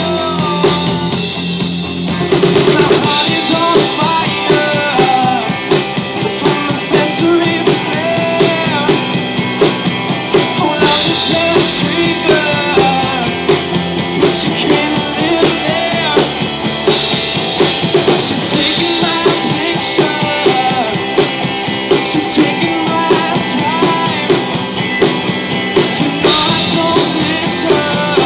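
Live rock band playing through PA speakers: electric guitars over a steady drum kit beat.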